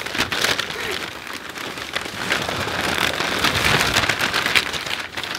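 Brown kraft wrapping paper crinkling and rustling as it is pulled open and handled, a dense crackle of fine snaps that grows somewhat louder in the second half.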